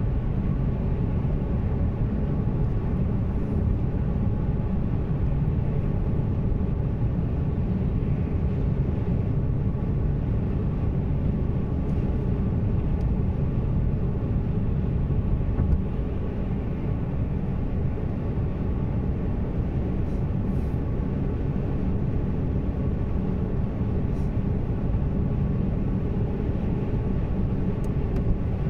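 Steady low rumble of engine and tyre noise heard inside the cabin of a moving Haval Jolion, easing slightly a little over halfway through.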